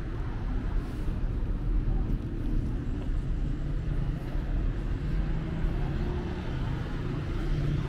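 City street traffic: a steady rumble of cars running along the road, with an engine hum growing a little stronger in the second half.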